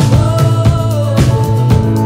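Background music with a steady drum beat and a held, gliding melody line.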